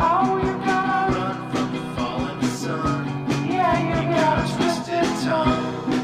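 Background rock music with a steady drum beat, guitar and a singing voice.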